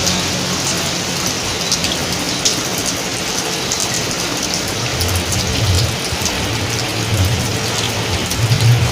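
Steady rain falling on hard surfaces, with a dense patter of drops. From about halfway a low engine rumble joins in.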